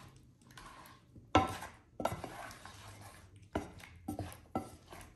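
Wooden spatula stirring rigatoni with egg and guanciale in a metal frying pan, scraping and knocking against the pan, with several sharp knocks, the loudest about a second and a half in.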